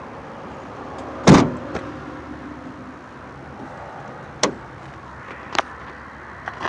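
A vehicle door shutting with one loud thud about a second in, then a few lighter clicks and knocks, over a steady vehicle hum.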